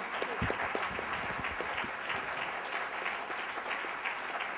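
Audience applauding, a dense, steady patter of many hands clapping, with a dull thump about half a second in.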